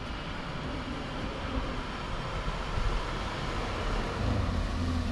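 Camaro SS's V8 engine running, with a steady hiss of road noise; a low engine drone grows louder near the end.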